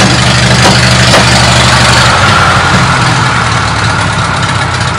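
Car engine idling steadily, with a faint high whine joining about two seconds in.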